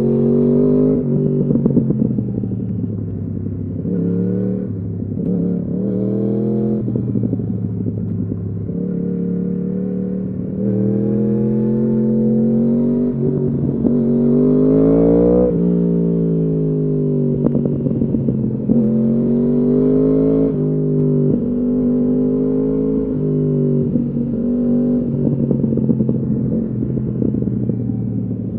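2015 Yamaha R1's crossplane inline-four through a full Akrapovič exhaust, accelerating through the gears. Its pitch climbs, then drops suddenly at each quickshifter upshift. About halfway through, the engine winds out, then runs down in pitch as the bike slows, before pulling hard through several more quick shifts.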